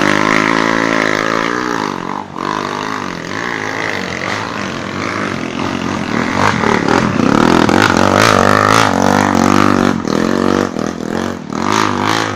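Dirt bike engine revving hard, its pitch rising and falling over and over, as the bike claws up a muddy slope with its rear wheel spinning and throwing mud.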